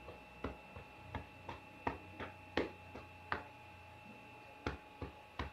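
Hands clapping rhythmically on a patient's back in chest percussion, the chest-physiotherapy technique that loosens sputum stuck in the lungs. Soft, quick claps about two to three a second, with a short pause past the middle.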